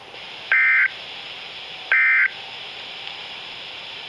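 Emergency Alert System end-of-message data bursts: two short, loud two-tone digital buzzes about 1.4 s apart, the last of the three repeats that close an EAS alert. They sound over a steady receiver hiss.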